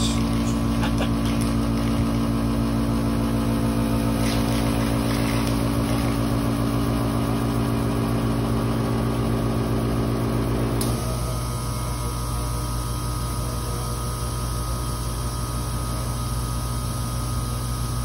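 R-410A air-conditioning system running with a steady motor hum and drone from its compressor and fan. The system is overcharged, has non-condensables and a restriction, and runs on high head pressure. About eleven seconds in, the heavier compressor drone drops out and a lighter steady hum carries on.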